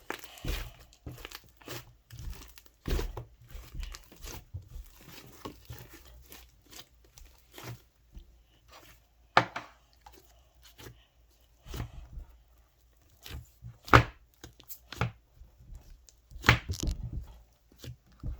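Slime being squeezed and pulled by hand, giving irregular crackles and sharp pops, with three louder snaps: about a third of the way in, near the three-quarter mark (the loudest), and a cluster near the end.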